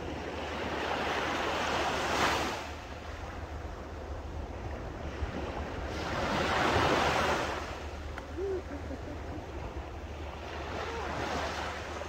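Calm small sea waves breaking and washing up a sandy beach, the surf swelling and fading three times, about every four to five seconds, loudest about two and seven seconds in.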